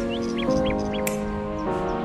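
Background music of held chords that change about every second, with several short bird chirps over it.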